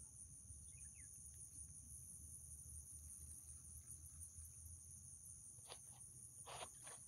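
Faint, steady high-pitched chorus of insects such as crickets. A few soft clicks come near the end.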